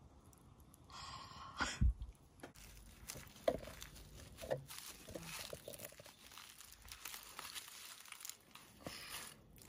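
Irregular crinkling, tearing and crunching noises from something being handled, with a heavier thump about two seconds in.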